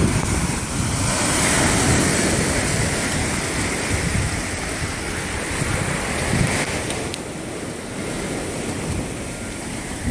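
Lake Ontario waves surging in and easing off, with wind buffeting the phone's microphone in a low, gusty rumble.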